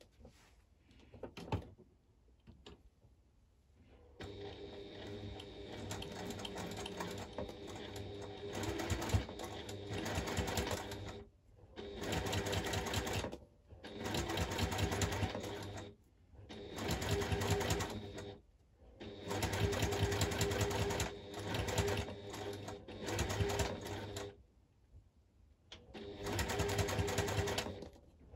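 Domestic electric sewing machine stitching a zip onto vinyl, starting about four seconds in after a few light handling clicks. It runs in about six stretches of one to several seconds, stopping briefly between them.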